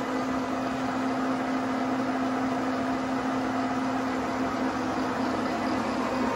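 Dean Smith and Grace 1609 centre lathe running, a steady mechanical hum with one strong constant tone that holds at an even level.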